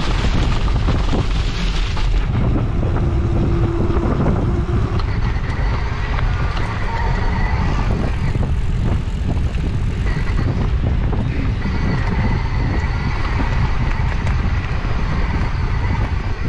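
Mountain bike riding noise: heavy wind buffeting on the microphone and tyre rumble, with a dry crackling hiss of leaves under the tyres for the first two seconds. After that the rumble runs on steadily with a faint steady whine over it.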